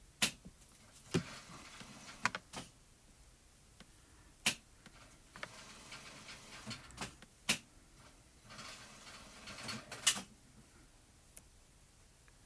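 Small die-cut cardstock pieces being handled and assembled by hand: irregular sharp taps and clicks on the work surface with stretches of paper rustling, the loudest click about ten seconds in.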